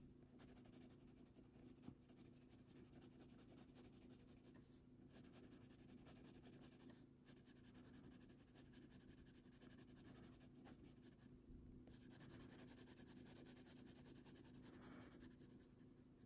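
Faint scratching of a Faber-Castell Polychromos colored pencil shading on paper in quick repeated strokes, with a few short pauses.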